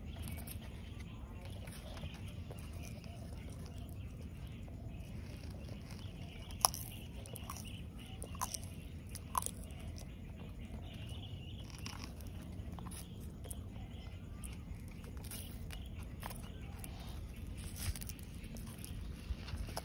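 Red-footed tortoise biting and chewing leaves and green stems, with a few sharp crunches, the loudest about a third of the way through, over steady low background noise.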